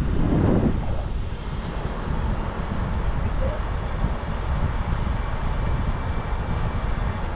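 Wind rushing over the microphone of a camera on the roof of a moving car, with the low rumble of the car driving underneath; a stronger gust in the first second, then a steady fluttering rush.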